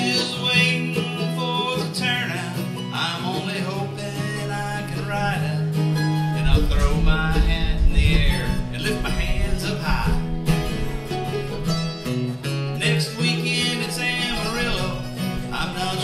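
Acoustic guitar and mandolin playing an instrumental passage of a bluegrass-style country song, with a low rumble in the bass about halfway through.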